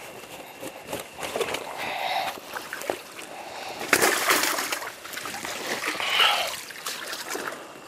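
Water splashing and sloshing in the shallows at the shore's edge as a keep net is worked in the water, in irregular bursts, with a sharp, loud splash about four seconds in and another strong one around six seconds.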